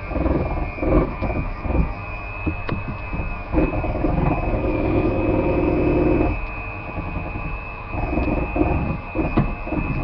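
Electric hand mixer running on medium speed, a steady high motor whine, its beaters churning cake batter in a glass bowl with irregular clattering.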